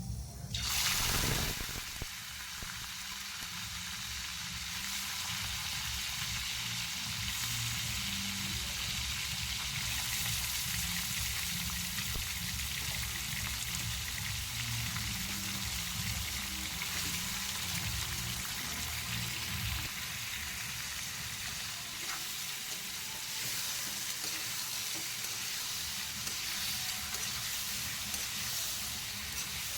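Food frying in hot oil in a pan, a steady sizzle, with a loud surge of sizzling about a second in.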